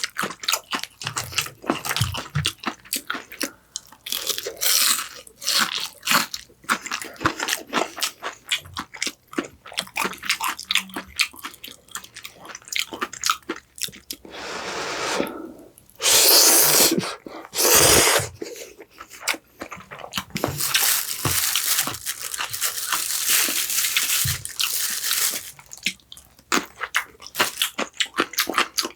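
Close-miked eating: crisp crunching and chewing of fried food, made up of many rapid crackling bites. A few longer, louder noisy rushes come partway through.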